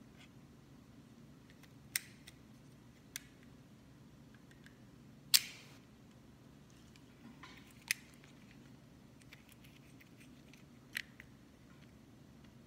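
Small hard plastic toy pieces clicking as they are handled and pressed together: about five separate sharp clicks a second or more apart, the loudest about halfway through.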